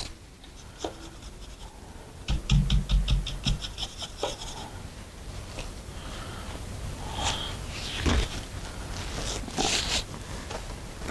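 A paintbrush being cleaned: a rapid run of taps, about ten a second, for just over a second near the start, then paper towel rustling and brushing as the bristles are blotted on it.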